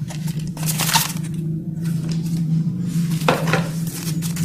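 Paper rustling and crinkling as a folded instruction sheet and a cardboard box lid are handled, in short bursts about a second in and again near three and a half seconds, over a steady low hum.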